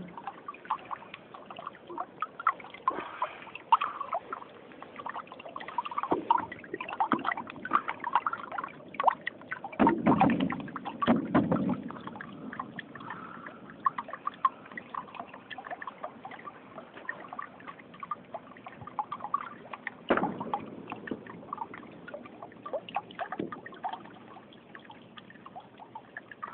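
Small river babbling and splashing over stones, a steady rush of water full of small splashes, with a louder, deeper surge about ten seconds in.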